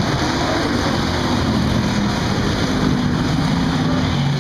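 Engines of several American Stock dirt-track race cars running hard as the pack races around the oval: a loud, steady drone whose pitch wavers up and down as the cars go through the turn.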